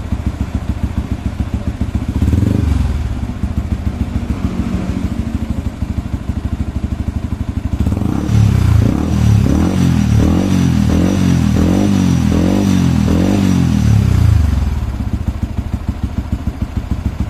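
Yamaha WR 155's single-cylinder engine idling while it warms up, its coolant temperature rising. From about 8 to 14 seconds in it runs faster and louder, its pitch rising and falling about every half second, then it drops back to idle.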